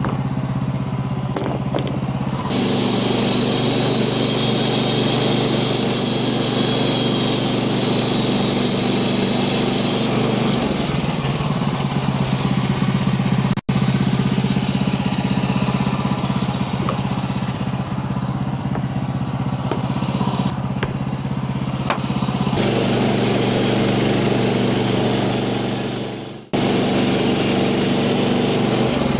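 Portable band sawmill's small gasoline engine running steadily under load, with the hiss of the band blade cutting through a poplar log coming and going. The sound breaks off abruptly twice, about halfway and near the end, and picks up again straight away.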